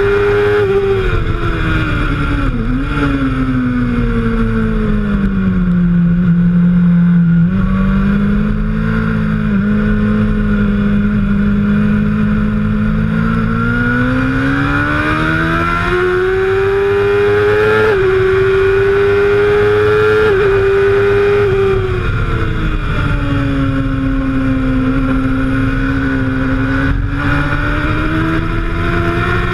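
Suzuki GSX-R750 K1's inline-four engine heard on board. Its note falls as the bike slows for a tight corner, then climbs again as it accelerates away, with small jumps in pitch at the gear changes. Wind rushes past the camera.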